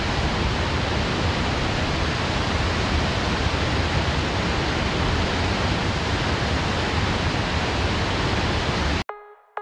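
Water discharging from a concrete arch dam's outlet jets: a loud, steady rush of falling water with a deep rumble underneath. It cuts off suddenly about nine seconds in, and a faint electronic tone begins just before the end.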